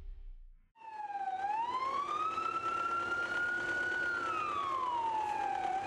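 An emergency vehicle siren wailing through one slow cycle. It starts abruptly about a second in, and its pitch dips, rises over a couple of seconds, holds, then falls toward the end, where it cuts off. A brief low rumble comes before it at the very start.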